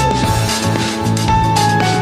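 Background music: held synth-like notes over a steady, regular beat, with no singing.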